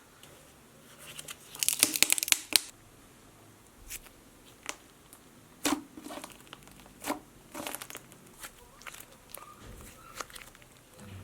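Slime being handled and squished. About two seconds in there is a dense burst of crackling clicks, followed by scattered single clicks and pops.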